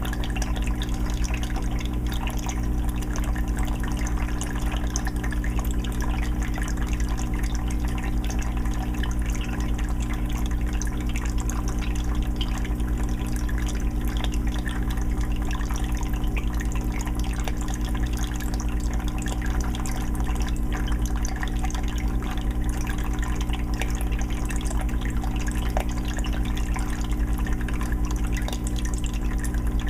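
Aquarium filter running, water steadily trickling and splashing back into the fish tank, with a steady low hum underneath.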